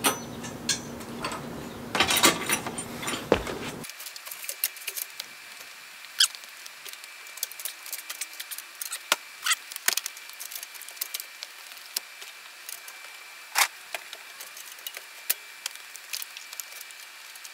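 Scattered clicks and light metal knocks of a Prinsu aluminium roof rack being shifted into place on the roof. They are busy for the first few seconds, then sparse over a faint steady high tone.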